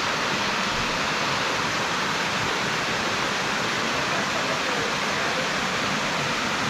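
Steady rush of water spilling from a wooden grist-mill flume and falling to the ground below.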